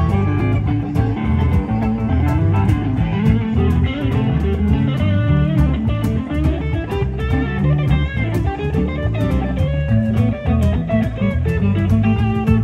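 Live band playing blues-rock on electric guitars, bass and drums, with a steady cymbal beat and bending guitar lines.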